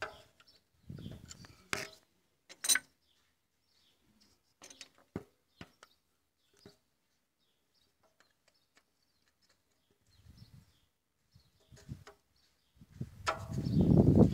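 Scattered sharp metallic clicks and taps of a socket and wrench on the rocker arms and injector adjusting screws of a Caterpillar 950F engine. Near the end comes a louder low rumbling noise.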